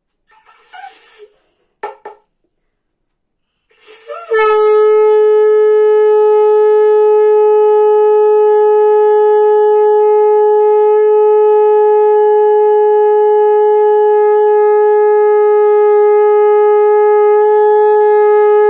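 Conch shell (shankha) blown in one long, unbroken blast at a steady pitch, starting about four seconds in after a couple of short, faint breathy puffs.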